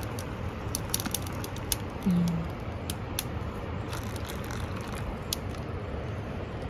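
Hot water pouring from a thermos carafe into paper cups over a steady low background rumble, with scattered light clicks. A brief low hum about two seconds in is the loudest moment.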